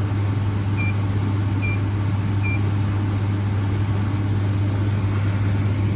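Through-the-wall condensing unit with a newly replaced compressor running with a steady low hum, evenly rather than pulsing: the new compressor is working properly. About a second in, three short high electronic beeps sound, roughly a second apart.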